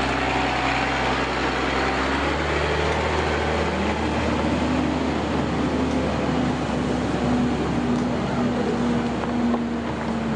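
A heavy vehicle's engine running, rising in pitch about four seconds in and then holding steady.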